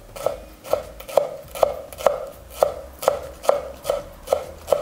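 Kitchen knife chopping green onions on a wooden cutting board, in steady even strokes about two a second.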